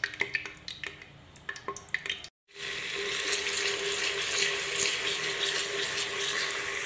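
Ginger-garlic paste frying in hot oil in a clay pot as it is stirred with a spatula. A few light clicks come first, then about two and a half seconds in a steady sizzle starts.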